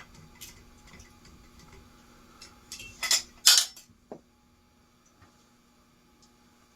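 Small metal parts and tools clinking and clattering while a ceiling fan's switch housing is being handled and put together. There are scattered light ticks, two louder clatters about three seconds in, and a faint steady hum underneath.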